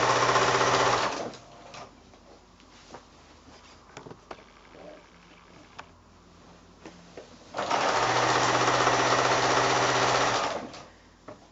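Electric sewing machine stitching a seam through pieced quilt fabric. It runs for about a second and stops, a few faint clicks follow while the fabric is handled, then it runs steadily again for about three seconds before stopping near the end.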